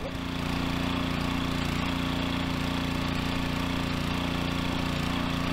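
Small petrol engine of a portable water pump running steadily, drawing water from the creek through its hose.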